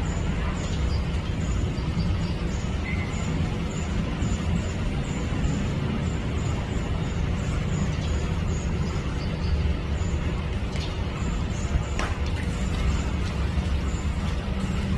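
Steady low rumble and hiss of background noise. A faint high tick repeats about every half second, and a single sharp click comes about twelve seconds in.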